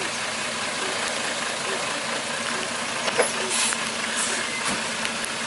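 Mercedes-Benz Unimog's diesel engine running steadily at low speed as the truck crawls through mud, with a sharp knock a little over three seconds in.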